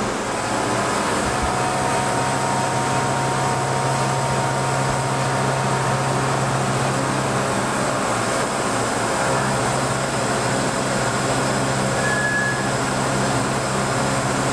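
CNC mill running an end mill along a steel crankshaft, shaping its counterweights and pin arms: a steady low machine hum with a faint whine through the first half.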